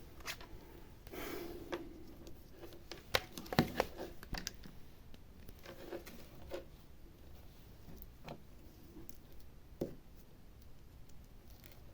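Scattered small clicks and taps with a brief rustle about a second in: hands and tools handling a phone during a bench repair.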